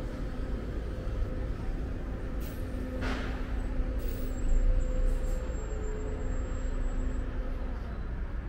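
City road traffic: vehicles passing with a steady low rumble and engine hum, and a short hiss about three seconds in.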